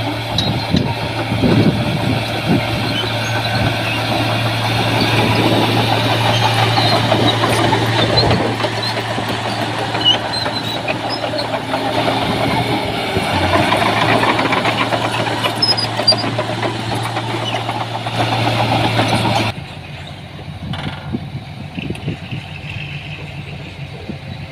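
Diesel engine of heavy earthmoving machinery running with a steady low drone and clattering noise. About nineteen seconds in the sound drops abruptly to a quieter, duller engine.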